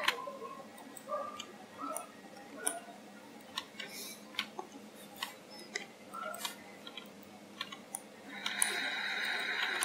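Scattered computer mouse and keyboard clicks, irregularly spaced, from editing a mesh in Blender. Near the end a hiss-like noise comes in and lasts about a second and a half.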